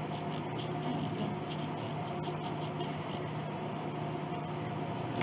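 Steady low hum of workshop background noise, with a few faint soft rubs of a damp cloth on the wooden soundboard.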